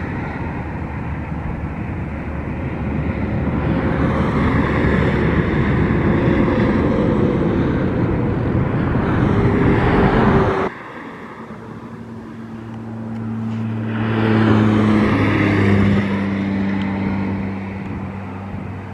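Road traffic noise: a dense wash of tyre and engine sound that grows louder and stops abruptly about ten seconds in, then a vehicle's low engine hum that swells and eases off.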